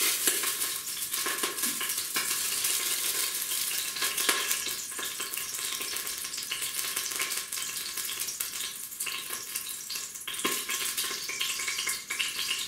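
Hot sesame oil sizzling and spattering in the preheated stainless-steel pot of a Lidl Silvercrest multicooker on its sear setting: a dense crackle that slowly dies down. Oil poured into the ceramic pot of the Cecotec cooker beside it does not spatter.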